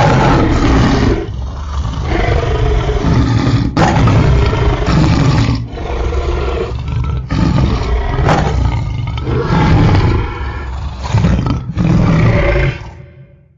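Angry, deep roaring and growling, in a string of long roars one after another, ending in a fade near the end.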